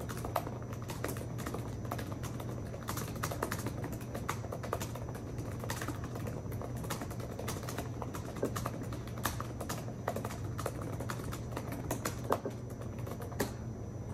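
Fast touch-typing on a Microsoft Surface Laptop 3's keyboard: a rapid, continuous run of key clicks, fast enough for about 105 words a minute.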